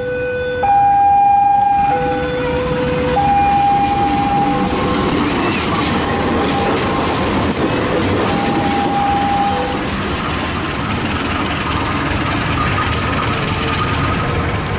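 A passing train's steady rumble builds up about two seconds in and stays loud. Over it, a two-tone warning signal alternates between a high and a low note about every second and a half, fading out after about ten seconds.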